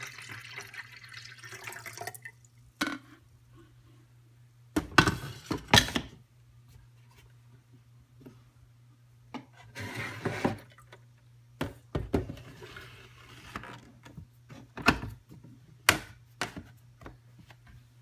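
Water pouring from a glass pitcher into a coffee maker's plastic water reservoir for about the first two seconds. Then a scattered run of short plastic knocks and clicks as the reservoir and the machine's door are handled.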